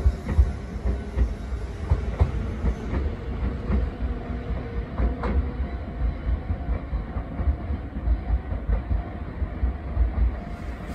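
Tobu 200 series limited express train pulling away, a pulsing low rumble with wheels clicking over rail joints. Its high end dies away after about three seconds as it recedes.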